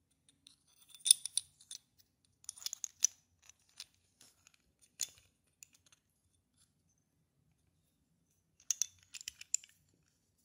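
Hard parts of a hole saw attachment clicking and rattling as they are handled and fitted together, in short clusters of clicks with pauses between.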